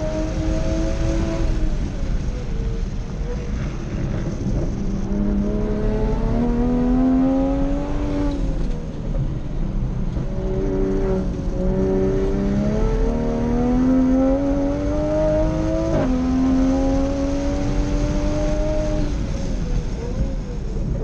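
Toyota GR Supra (A90) time-attack car's engine, heard from inside the cabin at speed on track. It runs high and falls away under braking, then climbs through the revs under throttle several times, dropping sharply about two-thirds of the way in and falling away again under braking near the end.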